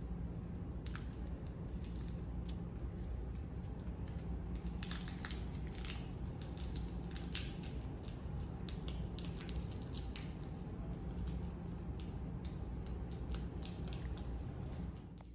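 Quiet room tone: a steady low hum with scattered small clicks and rustles throughout.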